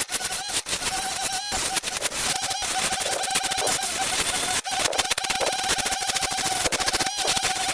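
Mini wood lathe running, its small motor giving a steady whine that dips in pitch several times, under dense scratching and rattling from a tool cutting the spinning wood.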